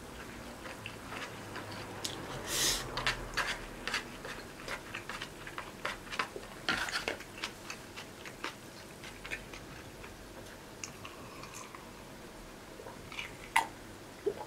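A person eating: chewing, with scattered small clicks as chopsticks and a plastic food container are handled and set down. Near the end a glass of ice is lifted and the ice clinks.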